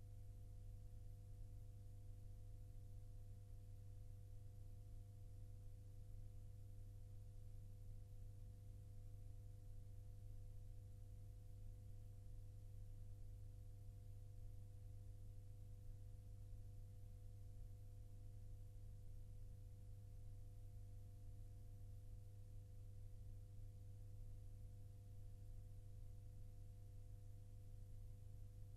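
Near silence: a steady low hum with a few faint steady tones above it and a faint hiss, unchanging throughout.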